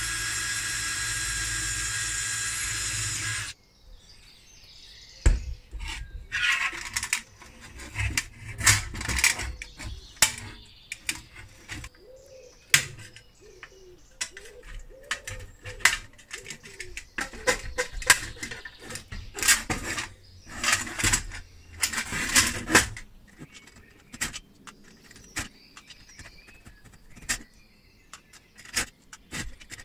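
A cordless drill bores into the steel body of a vintage toy cash register, running steadily for about three and a half seconds before stopping. After that come irregular clinks and clatters of the sheet-steel panels and tools being handled and pried apart.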